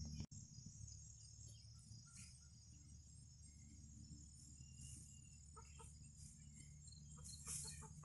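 Hens clucking softly several times in the second half, over a faint, steady high insect drone.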